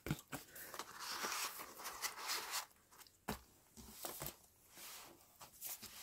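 Paper rustling and sliding as a card tag and the pages of a handmade paper journal are handled, with a few light clicks and taps. It is faint, with the longest rustle about a second in.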